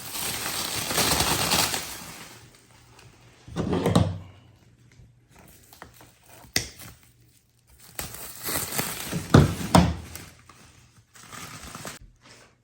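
Packaging being crinkled and torn off a shipped car seat, in two long spells of rustling and tearing with thumps near four seconds and near nine and a half seconds, and a sharp click in between.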